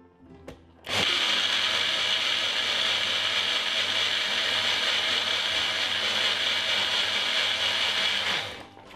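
Personal bullet blender running on fresh ginger chunks and water: a click, then about a second in the motor starts and runs at a steady whir for roughly seven and a half seconds before stopping near the end.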